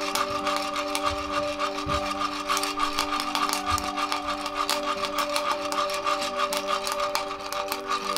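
Coffee beans (Brazil Santos) popping in a hand-held roaster shaken over a gas flame: rapid, irregular high crackling, described as 'pichi-pichi', over the rattle of the beans tumbling in the drum. This is second crack, the sign that the roast has reached a dark stage.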